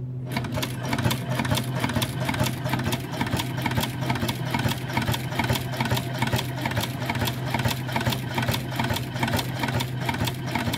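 Hand-cranked cobbler's sewing machine stitching leather: a fast, even clatter of needle strokes, about five a second, starting a moment in. A steady low hum sits underneath.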